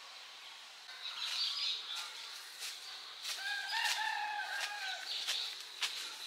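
Crackling and rustling of dry leaves and twigs, starting about a second in, with a long, slightly arching bird call from about three seconds in for a second and a half.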